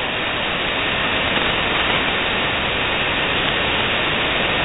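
Steady, loud shortwave receiver hiss: 20-meter band noise from a Softrock Ensemble II software-defined receiver in single-sideband mode, with no signal on the frequency. The noise is cut off above about 4 kHz by the wide receive filter.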